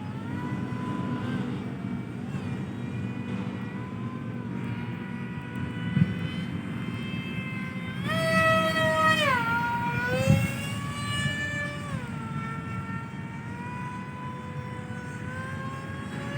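Kite hummer (wawat) droning a steady pitched tone in strong wind. The pitch rises sharply about halfway through, then falls back and shifts again as the gusts change. Wind rumbles on the microphone underneath, with two brief knocks.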